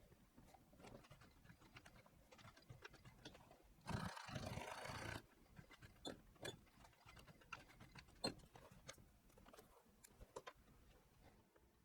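Faint, scattered clicks and taps of handling, with one louder rustle about four seconds in that lasts about a second.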